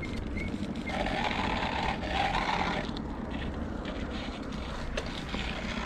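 Steady wind rumble on the microphone with street and traffic noise while riding a bicycle through town. Faint, higher tones come and go between about one and three seconds in.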